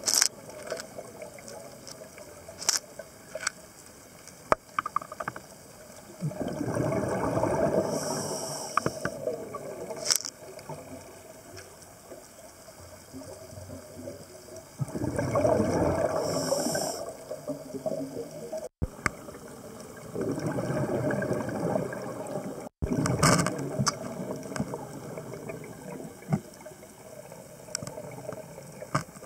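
Scuba diver's regulator breathing heard underwater: three long bursts of exhaled bubbles several seconds apart, with a quieter hiss and scattered sharp clicks between breaths.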